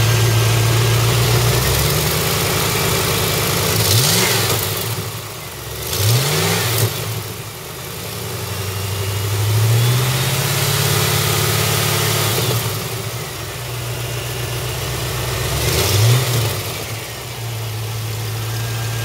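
1989 Corvette's L98 5.7-litre Tuned Port Injection small-block V8 idling, blipped three times to quick short revs that fall straight back to idle, with a gentler rise in revs midway.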